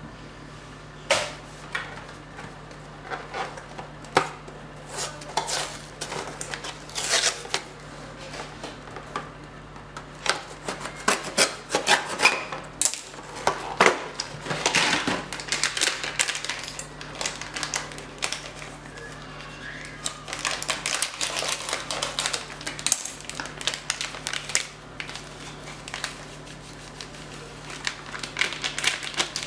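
Irregular taps, clinks and rustling of food preparation at a glass bowl, as a foil sachet of whipped-cream powder is handled and emptied into milk.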